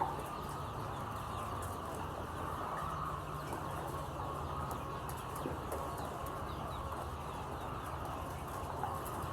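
Steady din of a flock of layer chickens clucking and calling, over a low steady hum.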